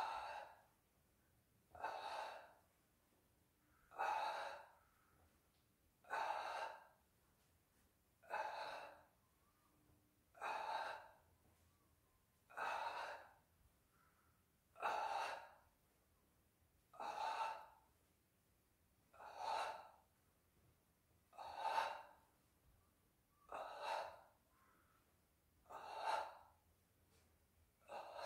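A man's forceful breaths in a steady rhythm, one about every two seconds, each a short rush of air with quiet between.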